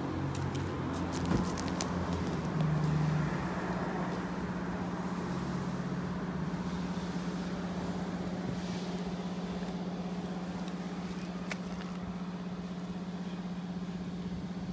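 Makita EH561 engine hedge trimmer's small two-stroke engine running at a steady speed, its note shifting a little in the first few seconds before holding even.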